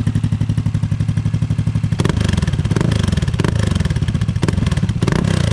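Honda Click 160 scooter's single-cylinder engine running through an Akrapovic exhaust whose silencer insert has been cut short. It idles with an even exhaust pulse, then from about two seconds in it is revved in several throttle blips, the pitch rising and falling each time.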